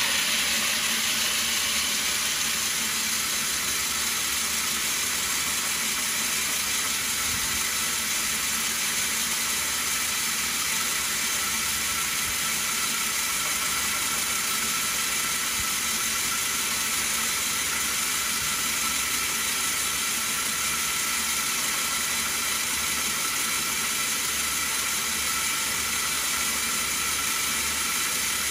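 Stone bead milling machine running, with a steady, even grinding hiss from the rough stone beads being worked in its water-fed bowl.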